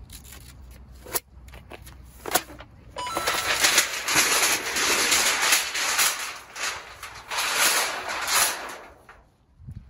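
Thin titanium sheet flue of a Wild Wild West titanium wood stove being unrolled from its coil: two sharp metallic clicks, then about six seconds of loud crinkling, rattling sheet metal in uneven surges that dies away shortly before the end. The racket is the known drawback of rolled titanium stovepipe, which is really noisy to set up and roll back up.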